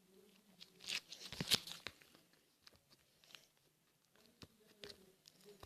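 Hands squeezing and stretching slime, giving sticky crackles and pops, a dense run about a second in, then scattered single clicks.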